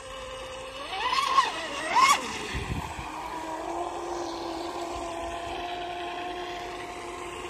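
Electric RC racing catamaran running at speed on 6S LiPo power with a 44 mm TFL propeller: a steady pitched motor whine. The whine surges twice, rising and falling in pitch and loudness, about a second and two seconds in, then settles to an even drone.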